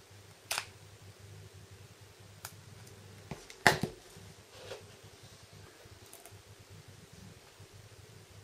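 A handful of small, sharp clicks scattered over several seconds, the loudest about three and a half seconds in: flex-cable and antenna connectors being pressed onto the logic board of a Samsung Galaxy S4.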